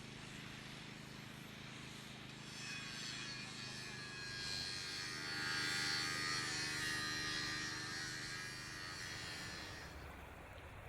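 A low, steady droning hum, joined about two and a half seconds in by a high, shimmering tone that swells to its loudest around the middle and fades away near the end.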